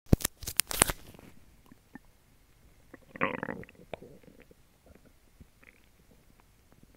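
Sharp clicks of a wired earphone microphone being handled against a bare belly in the first second. Then a human stomach gurgles, with one rumble of about half a second three seconds in and faint little pops and gurgles after it, as the stomach works on a recent meal.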